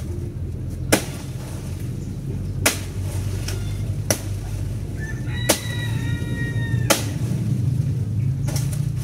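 Five sharp chopping strikes, about one and a half seconds apart, of a blade cutting into a banana plant's stalk to bring down the bunch. A rooster crows once in the background a little past halfway.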